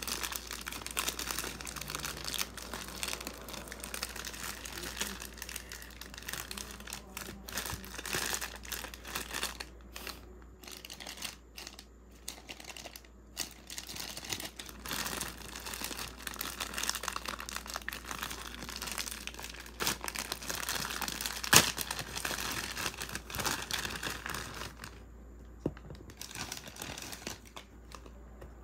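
Thin clear plastic bags crinkling and rustling in the hands as they are handled and opened, in bursts with a quieter stretch about a third of the way through. One sharp click stands out about three-quarters through, and the crinkling dies down near the end.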